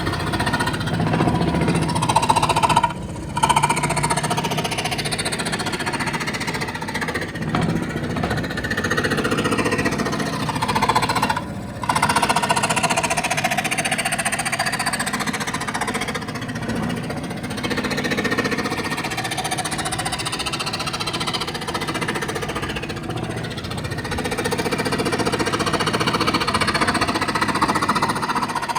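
An electric woodworking power tool running continuously while cutting or shaping wood, with a harsh rapid chatter that wavers as it works. It stops briefly about 3 seconds in and again near 12 seconds.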